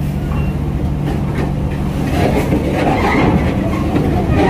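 Heavy diesel truck engine running steadily. From about two seconds in, a louder clanking and rattling with repeated knocks builds up as a truck carrying a rail wagon rolls aboard the ship.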